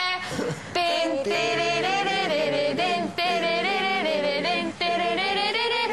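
Singing: a melody of long held notes, starting about a second in.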